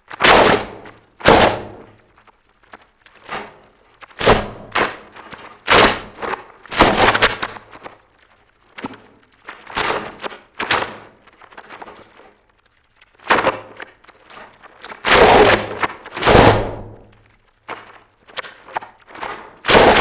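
Harsh noise music: irregular loud crashes of distorted noise, some sharp and short, others lasting about a second, with a low hum between them.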